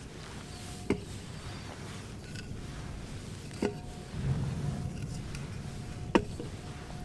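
Full aluminium beer cans set down one after another on a wooden plank: three sharp knocks, each with a short ring, about two and a half seconds apart.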